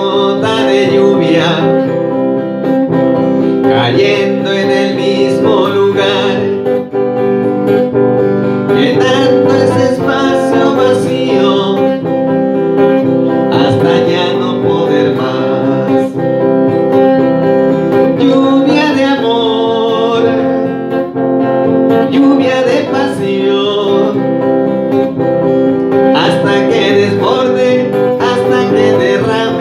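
Music: an electric guitar strummed over steady sustained backing chords.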